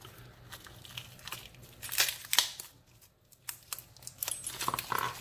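Stiff plastic blister packaging being worked and torn open by hand: irregular crinkling and crackling with a couple of sharp snaps about two seconds in.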